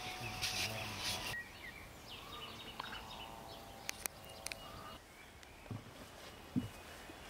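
Birds chirping over a steady outdoor background hiss, with a few short clicks in the middle and soft low knocks near the end.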